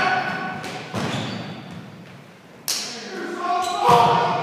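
Basketball thudding on a hardwood gym floor a few times, with a sharper bang about two-thirds of the way through, each hit echoing in the large gym. Players' voices are heard near the start and end.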